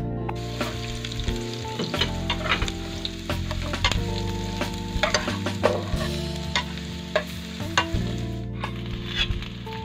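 Chopped onion sizzling as it fries in oil in a nonstick pan, with a spatula stirring and scraping it in irregular strokes.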